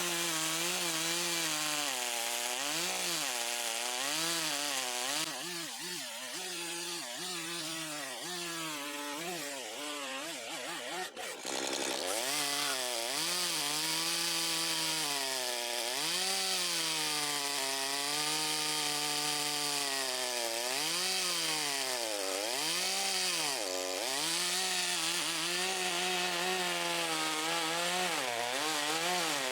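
Makita DCS5121 50 cc two-stroke gasoline chainsaw cutting wood. The engine pitch repeatedly sags and recovers under load, with one deeper drop about eleven seconds in.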